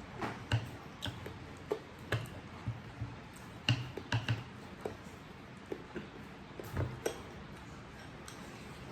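Irregular light clicks and taps of eating utensils against dishes during a meal, a dozen or so scattered sharp ticks, some with a short ring.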